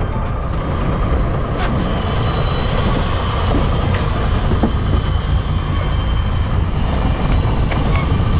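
A fishing boat's engine running steadily: a low rumble with a faint, steady high whine above it.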